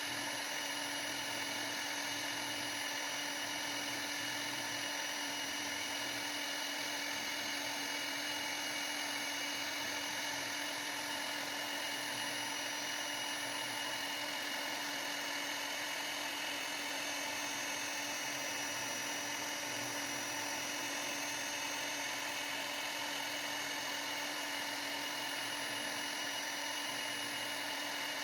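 CNC router spindle running steadily, a high-pitched whine with several fixed tones and no change in level.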